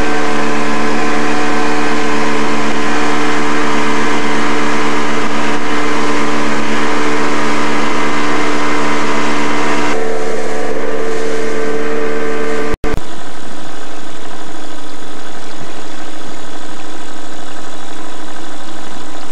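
Motorboat engine running steadily under way, a constant drone over the rush of water and wind. About two-thirds of the way through, the sound cuts out for an instant and comes back with a slightly different tone.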